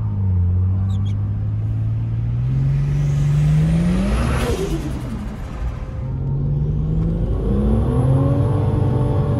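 Ford Falcon XR6 Turbo's turbocharged Barra inline-six accelerating, heard from inside the cabin. The engine note climbs for about four seconds, drops sharply at a gear change, then climbs and holds, with a faint high whistle rising alongside each climb. This is a test drive after a timing-chain repair.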